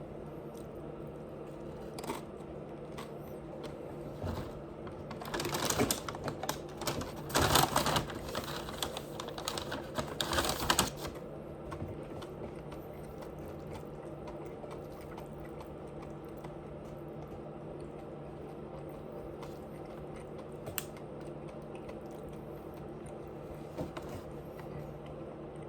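A person chewing crunchy food close to the microphone: a dense run of crackling crunches about five seconds in, lasting some six seconds, with a few single clicks before and after. A steady low hum sits underneath.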